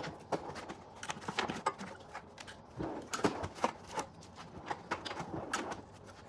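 Irregular light knocks and clicks of tools and shop items being picked up, moved and set down while a workbench is cleared.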